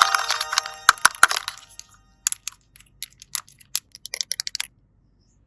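A short electronic chime fades out in the first second and a half. It is followed by a scatter of sharp clicks and snaps from plastic toy doctor tools being handled.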